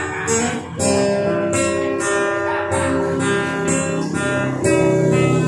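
Acoustic guitar strummed in steady chords, a new chord struck every second or so.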